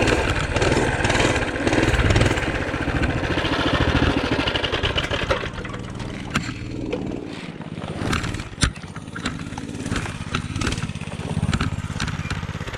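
Small engine of a Tote Gote trail bike running under way, then easing off about five seconds in to a lower, slower run. A few sharp clicks come through in the second half.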